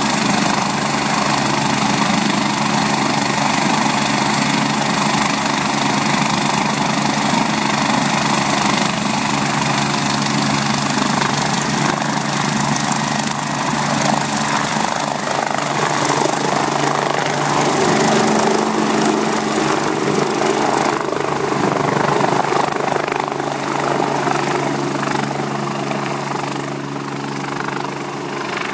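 BK117 twin-turbine helicopter running on the ground with its rotors turning, then lifting off and flying away; the steady turbine and rotor noise fades over the last few seconds as it leaves.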